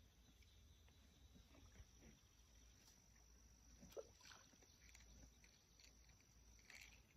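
Near silence: faint outdoor ambience with a steady high insect trill and a few faint ticks, one a little sharper about four seconds in.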